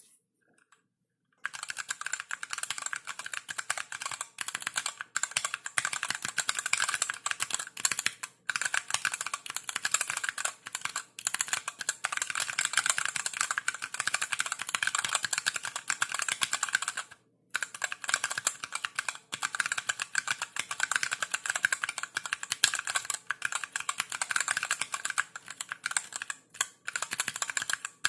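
Typing on a Niu Mini 40% mechanical keyboard with Zealio V1 67g tactile switches, DSA keycaps and an aluminium bottom: a dense, steady clatter of keystrokes starting about a second and a half in, broken by two brief pauses.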